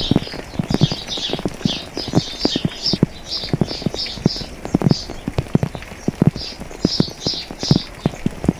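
Heavy raindrops dripping irregularly onto a hard surface close by, each a sharp knock, several a second. Over them a songbird chirps in quick series of short high notes.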